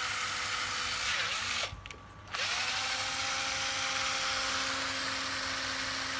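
Ryobi 7.2 V cordless drill running unloaded with a steady motor whine. It stops briefly about one and a half seconds in, then starts again, its pitch rising as the motor spins up and then holding steady.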